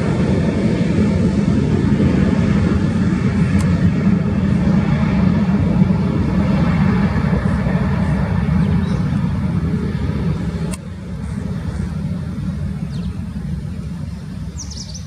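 Boeing 737-800's CFM56 jet engines at take-off thrust: a loud, low rumble as the airliner accelerates down the runway away from the listener, growing fainter over the second half, with a sudden drop in level about eleven seconds in.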